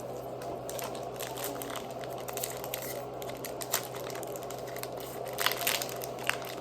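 Foil trading-card booster pack wrappers crinkling and crackling as they are handled and opened, with a few sharper, louder crackles near the end.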